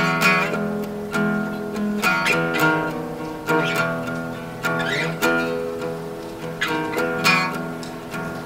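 Acoustic guitar music: strummed chords and picked notes ringing, with sharp strums at irregular intervals.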